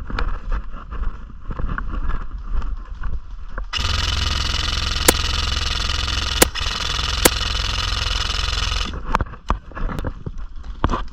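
Body-worn camera audio from an airsoft game: brushing and scattered clicks of a player moving through cover. About four seconds in, a stretch of steady rushing noise begins and lasts some five seconds. Over it come three sharp snaps of airsoft gun fire, spaced a little over a second apart.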